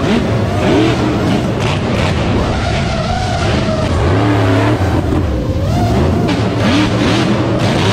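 Monster truck engine revving hard, its pitch swinging up and down over and over.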